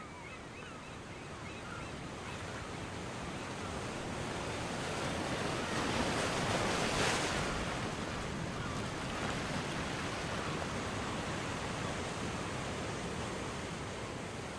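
Ocean surf washing steadily, swelling to a peak about halfway through and then easing.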